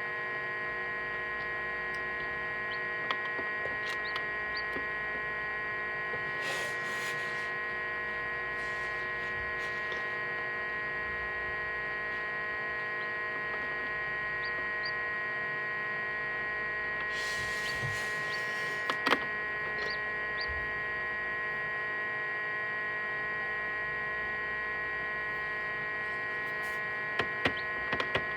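Egg incubator running with a steady electrical hum made of several held tones, with a few faint clicks and two brief rustles over it.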